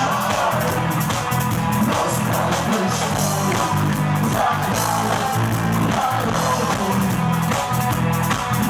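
Rock music: a band with drum kit and bass playing a steady beat.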